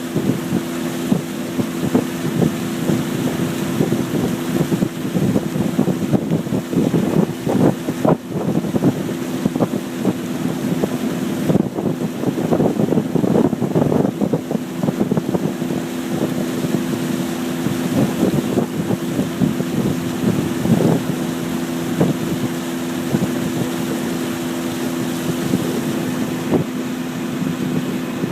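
Boat motor running at a steady pitch while the boat is underway, with wind buffeting the microphone in gusts.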